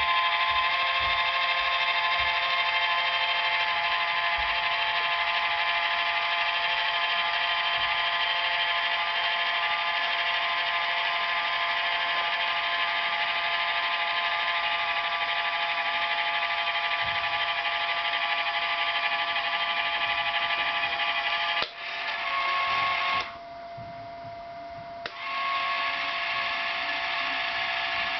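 Electric drive motor of a Lone Star G-scale model railway turntable running with a steady whine. It cuts out for a moment about 22 seconds in, falls to a low hum for about two seconds, then whines again.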